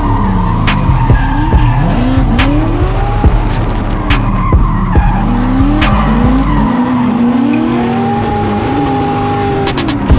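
Drift cars sliding with tyres skidding while their engines rev up and drop back again and again. There are a few sharp cracks along the way.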